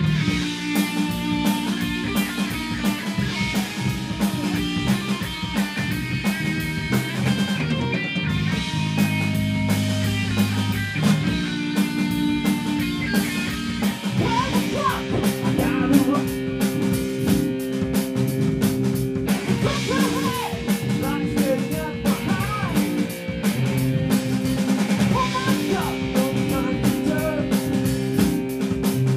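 Rock band playing live: electric guitar, bass guitar and drum kit together, with a steady driving beat.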